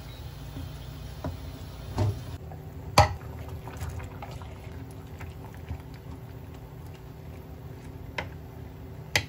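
Pot of soup simmering on an electric hob while a wooden spoon stirs it, with four sharp knocks of utensils against the pot. The loudest knock comes about three seconds in, and two more come near the end.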